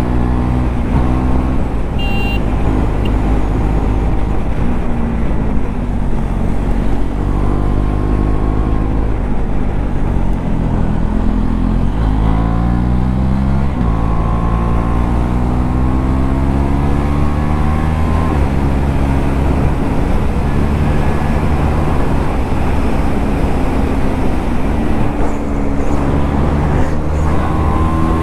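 KTM Duke 390's single-cylinder engine through an aftermarket Akrapovič exhaust, running hard at road speed, its pitch rising and falling with the throttle and gear changes.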